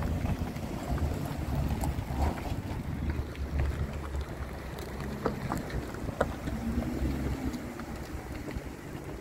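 Low engine rumble from cars rolling slowly past at walking pace, among them a Plymouth Prowler with its 3.5-litre V6. Wind is buffeting the microphone.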